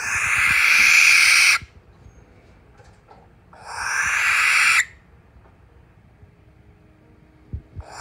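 Barn owl screeching: two long, harsh, hissing screams, each about a second and a half, a couple of seconds apart.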